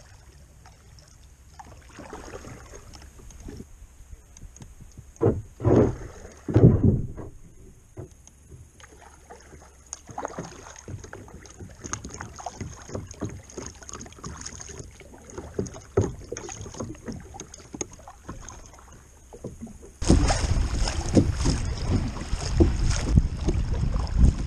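Kayak paddling on a river: soft, irregular paddle strokes and drips, with a few louder knocks and splashes about five to seven seconds in. About twenty seconds in, a sudden loud, steady rush of water splashing against the kayak's hull as it runs through choppy shallows.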